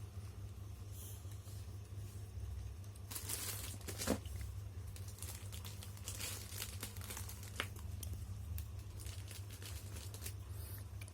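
Parcel packaging being opened by hand: plastic crinkling and tearing in scattered rustles with a few small knocks, over a steady low hum.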